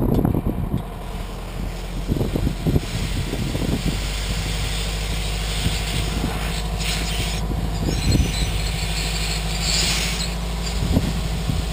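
Mitsubishi Triton pickup engine idling steadily, kept running so the brakes keep their assist. Scattered clunks and thumps sound over it, with a couple of brief hissing rushes in the second half.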